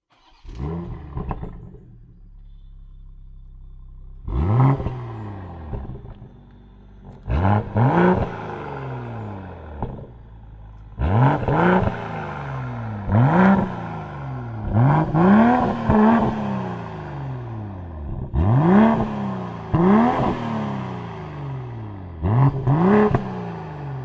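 BMW M240i xDrive Coupé's turbocharged 3.0-litre straight-six starting up with a short flare of revs, then idling and being revved through its sports exhaust in about a dozen quick throttle blips, often in pairs, each rising and falling in pitch. The six-cylinder burbles between blips.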